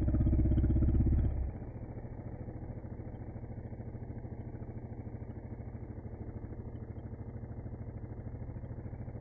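Kawasaki KLR650's single-cylinder four-stroke engine idling with an even, pulsing beat. It runs louder for about the first second and a half, then settles to a steady idle.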